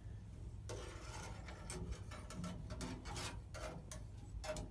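A fuel sending unit, with its float arm and new cork float, being worked back into a truck's fuel tank opening. Irregular metal scraping and rubbing with light knocks, starting about a second in.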